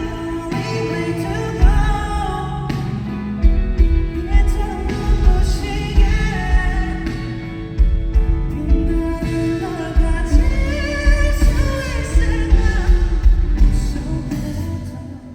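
Live pop-rock song played loud through a concert hall's sound system: a singer's voice over a full band with heavy bass. The music drops away near the end as the song finishes.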